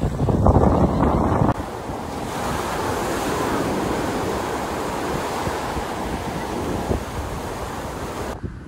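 Surf breaking and washing up a sand beach. Wind buffets the microphone with a heavy low rumble for the first second and a half, then gives way to a steady hiss of waves.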